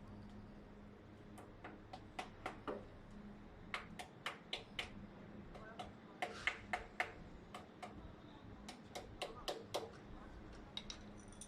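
Sharp clicks in short runs of about five, roughly four a second, with pauses of a second or so between runs, over a faint steady hum.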